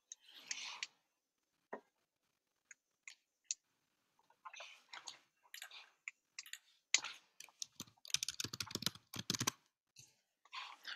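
Wild asparagus spears being snapped into pieces by hand and dropped into a sauté pan: scattered light snaps, clicks and rustles, with a dense run of clicks about eight to nine and a half seconds in.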